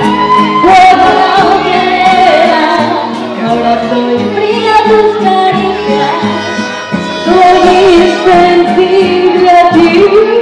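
A woman singing a ballad through a microphone over a loud backing track, holding long notes.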